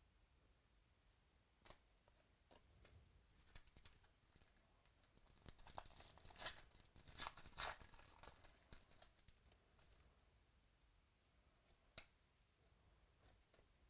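Foil wrapper of a baseball card pack torn open and crinkled by hand, a run of crackling loudest in the middle, with a few light clicks before and after.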